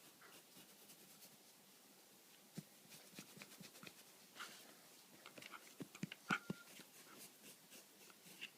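Jagdterrier's faint snuffles and small sneezes: a scatter of short sounds starting about two and a half seconds in, the sharpest about six seconds in.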